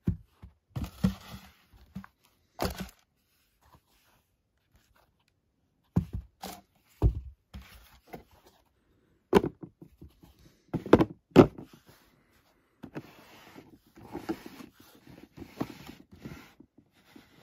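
Nike Downshifter 10 sneakers and their cardboard shoe box being handled: a string of separate soft thuds and knocks as the shoes and box are picked up and set down, then several seconds of rubbing and rustling near the end.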